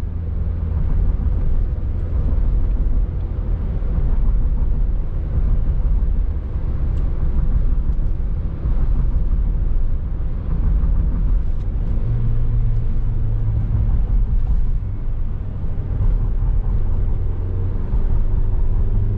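Car driving: a steady low rumble of road and engine noise, with an engine hum coming up about twelve seconds in.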